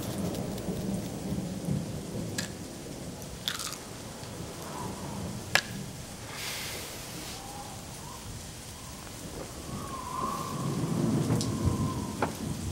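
Thunderstorm sound: steady rain with rolling thunder that swells near the start and again near the end, broken by several sharp cracks.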